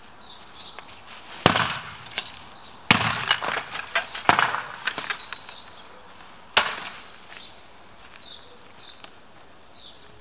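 A loud bang about a second and a half in, then a clattering run of knocks and crashes, and one more bang a few seconds later.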